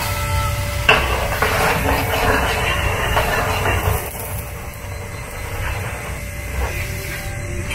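Grated-potato rösti frying in butter in a non-stick pan: a hissing sizzle that grows louder from about a second in, after a single knock, and eases after about four seconds, over a steady low hum.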